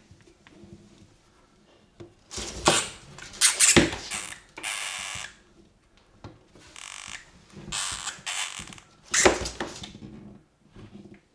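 Scrabbling and scraping in a smooth plastic tub, in several noisy bursts with quiet gaps between, as an Argus monitor lizard grabs a hamster and struggles with it in its jaws.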